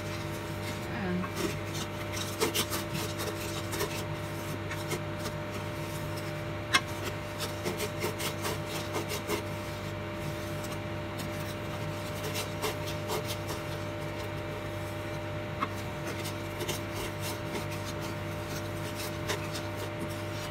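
Wooden spoon scraping and stirring around a stainless steel pot of thick brown sugar syrup, with scattered small scrapes and knocks over a steady low hum.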